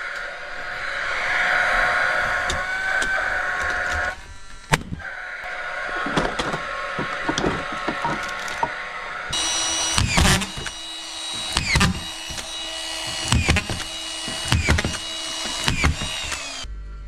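Hilti screw gun's motor whining in long runs as screws are backed out of ceiling plasterboard, stopping briefly about four seconds in, then running at a higher pitch over repeated sharp knocks in the second half. The gun has been playing up and is not working well.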